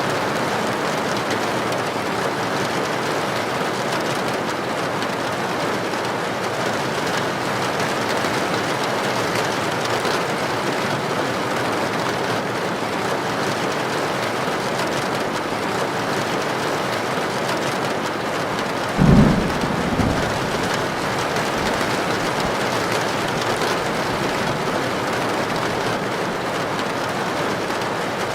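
Heavy rain drumming steadily on a tin roof. About two-thirds of the way through comes a short, low thunder boom, the loudest moment, with a smaller one just after it.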